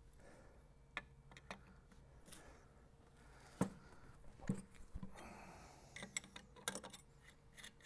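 Faint, scattered metal clicks and knocks of bolts, nuts and a steering box mounting bracket being handled as the test-fitted assembly is taken apart, with a quick run of clinks near the end.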